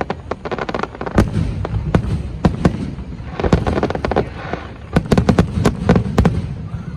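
Aerial fireworks exploding: sharp bangs and crackling over a low rumble, with a quick run of cracks about five to six seconds in.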